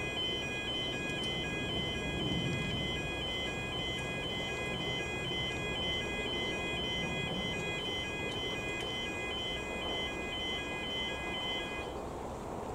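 Level crossing's electronic audible warning alarm sounding a fast, evenly repeating pattern of alternating high tones, about two beats a second. It cuts off about a second before the end.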